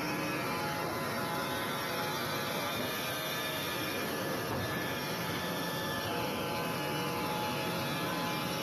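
Wood-Mizer LT300 band sawmill running, a steady, even machine noise with several faint steady tones through it.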